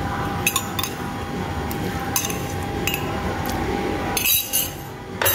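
A glass bottle of water being picked up and handled over the mixing bowl, giving a few light clinks and knocks, with a brief rushing noise about four seconds in.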